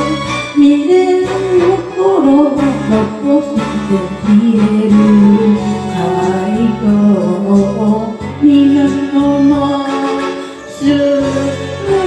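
Music: a voice singing a song with held, wavering notes over instrumental accompaniment.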